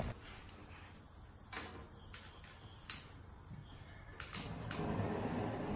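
A few faint clicks and knocks, then about four seconds in a steady hiss starts and grows as the propane tank valve is opened and gas flows to the burner.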